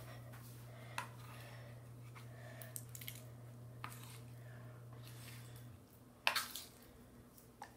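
Thick slime being handled on a countertop: scattered short wet squelches and clicks, the loudest about six seconds in. A low steady hum underneath stops just before it.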